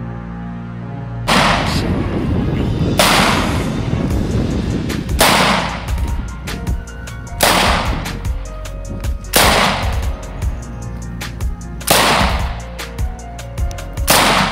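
Single rifle shots from a semi-automatic rifle, fired one at a time about every two seconds, seven in all, each a sharp crack with a short echoing tail. Background music with a steady beat plays throughout.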